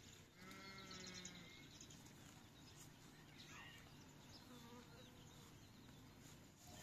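A single faint bleat from a farm animal about half a second in, lasting about a second, then a few faint short chirps over quiet outdoor ambience.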